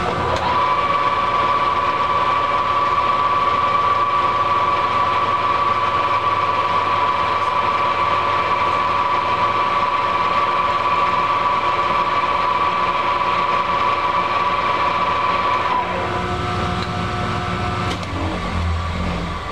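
Metal lathe's spindle starting up and running with a steady gear whine while turning down a metal shaft. About 16 seconds in the whine changes, and by about 18 seconds the spindle has stopped, leaving a low hum.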